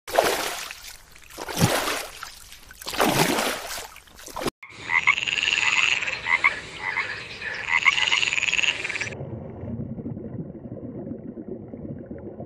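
Three loud rushing hisses, each swelling and fading, then a frog croaking in two bouts of repeated calls. After that comes a quieter, steady low wash of noise.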